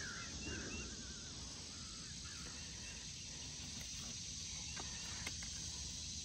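Faint bird chirps over a low, steady outdoor background, with a couple of soft clicks near the end.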